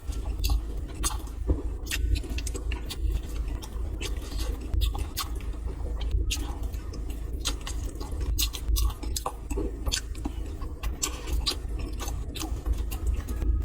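Close-up eating sounds: a person chewing steamed buns, with frequent short mouth clicks, over a steady low rumble.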